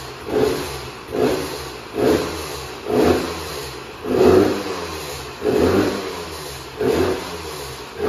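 2004 Husqvarna WR125 single-cylinder two-stroke engine blipped about once a second through a KTM 300 end silencer, each rev falling back toward idle. The engine sounds good, though its power valve is not working.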